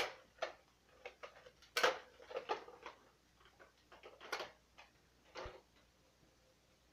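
Plastic clicks and knocks from a Nerf blaster being loaded and handled: one sharp, loud click at the start, then scattered lighter clicks over the next five seconds, the last with a dull thump.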